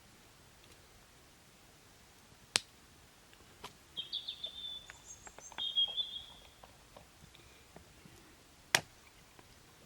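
Two sharp knocks about six seconds apart, with a run of lighter clicks and a few short, high chirps between them.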